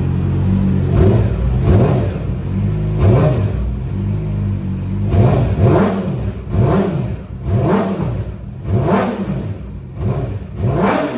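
Yamaha R6 inline-four through a Yoshimura slip-on exhaust with Voodoo headers, idling steadily, then revved hard in a string of about eight or nine quick throttle blips, each rising and falling in pitch.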